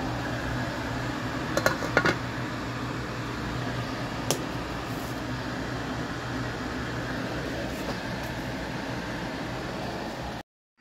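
Steady fan hum with a low drone, and a few sharp clinks of cookware about a second and a half, two and four seconds in. The sound cuts off suddenly near the end.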